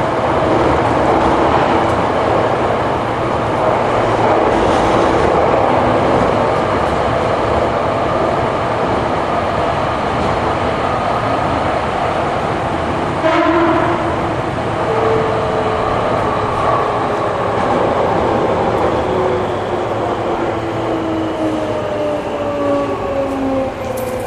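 Hankyu 8300 series electric train heard from inside the car running through a subway tunnel: a loud, steady rumble of wheels on rail, with a single clack about halfway. From about 15 seconds in, the motor whine falls in pitch in several tones as the train slows.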